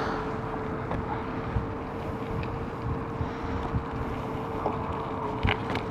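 Riding an e-bike: wind buffeting the microphone and a low road rumble, with a steady whine from the electric motor and a few faint clicks.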